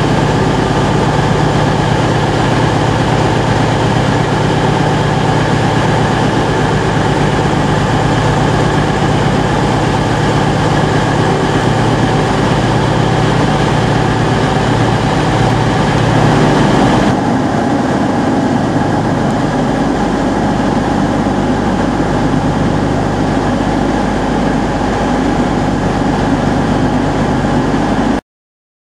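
Diesel train engines running steadily: a Class 222 Meridian diesel multiple unit drawing into the platform beside a standing train. The hum changes about seventeen seconds in, and the sound cuts off abruptly near the end.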